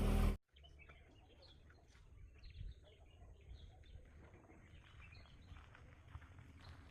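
Birds chirping in many short, faint calls over a low steady rumble. A loud noise cuts off abruptly just before they begin.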